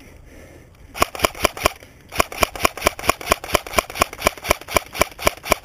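Suppressed Umarex S&T UMP .45 airsoft electric gun firing close by. About a second in there is a quick run of four shots, a brief pause, then a steady string at about five shots a second. Each shot is a sharp, snappy crack.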